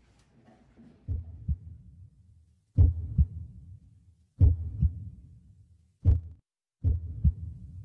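Heartbeat sound effect: low double thumps, lub-dub, about five beats repeating every second and a half or so, setting a tense mood.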